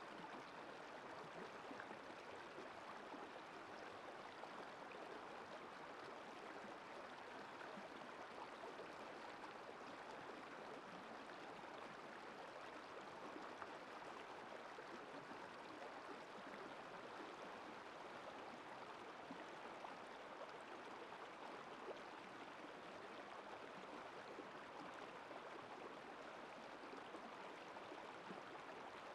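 Shallow rocky river running over stones and boulders: a faint, steady rush of flowing water.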